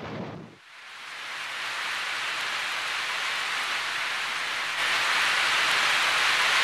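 Rain falling on a car's windshield and roof, heard from inside the moving car as a steady hiss. It fades in about half a second in, grows louder, and steps up again near five seconds.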